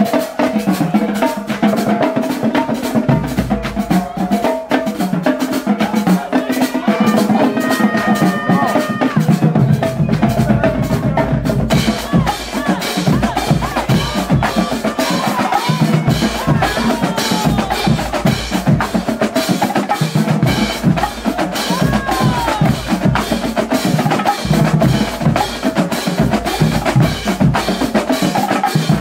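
Marching band drumline playing a cadence, snare drums over marching bass drums in a dense, steady stream of strikes. The bass drums come in heavier about ten seconds in.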